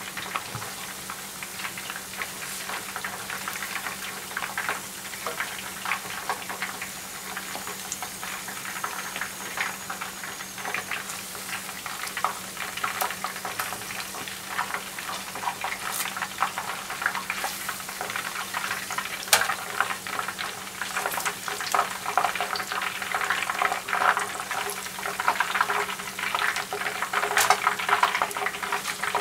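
Marinated chicken pieces (karaage) deep-frying in a pot of hot oil: a steady bubbling sizzle thick with small crackling pops, growing louder in the last several seconds. The oil has been turned up to crisp the coating for the finish.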